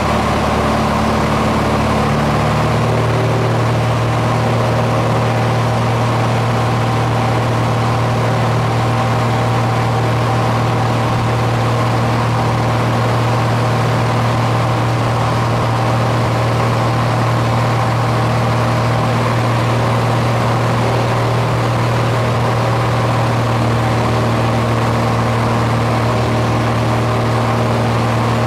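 Steady drone of an aircraft engine heard from on board, its tone shifting slightly a couple of seconds in.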